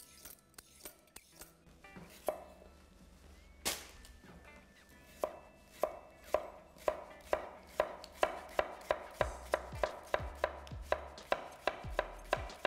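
Chef's knife slicing a peeled cucumber into thin rounds on an end-grain wooden chopping board. A couple of separate knocks come first, then from about five seconds in a steady run of knife strikes against the board, roughly three a second and getting slightly quicker.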